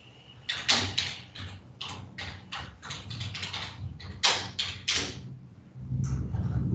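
Computer keyboard being typed on: a dozen or so irregular, sharp key strokes over about four seconds, as someone searches for an email. A low rumble comes in near the end.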